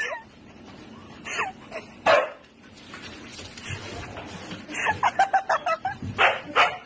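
A husky barking and yipping at a cat. There are single barks a little over a second and about two seconds in, then a quick string of short yips around five seconds, and two more barks near the end.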